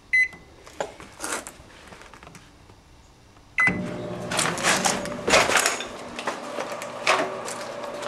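Sharp Carousel microwave oven keypad beeping as the time is entered, then a beep about three and a half seconds in as the oven starts and begins a steady hum. Sharp snaps and crackles sound over the hum as the CD inside arcs.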